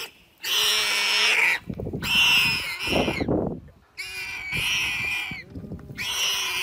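A leopard and a porcupine fighting: four harsh squealing snarls, each about a second or more long with short breaks between, and a low rough growl around the middle.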